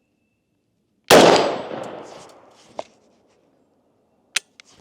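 One unsuppressed shot from a short-barrelled 10.4-inch AR-type 5.56 rifle: a loud crack whose echo fades over about a second and a half, followed by two small clicks. The rifle has an H3 buffer, which the shooter finds too heavy for it to cycle reliably without the suppressor.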